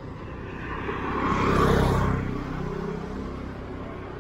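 A motor vehicle passing by on the road: its engine noise swells to a peak about a second and a half in, then fades away.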